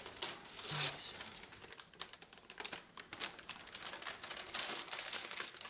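Baking paper crinkling and rustling, with a run of small clicks and taps, as a springform cake ring is unlatched and lifted away from a chilled cake.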